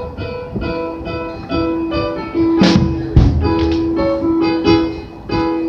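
Keytar playing a run of held, organ-like synth notes, each sustained about a second before moving to the next, during a monitor sound check, with a couple of sharp hits about three seconds in.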